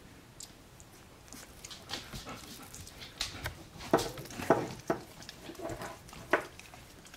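12-day-old Alaskan Malamute puppies making short squeaks and whimpers, quiet at first and starting about two seconds in, with a few sharper squeaks in the second half.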